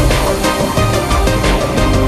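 Background music with a steady beat and sustained pitched tones.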